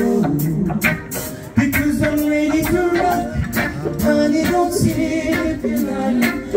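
Live band playing a song with a singer, over a drum beat and pitched instruments. The music thins out briefly about a second in, then the full band comes back in with a hit about a second and a half in.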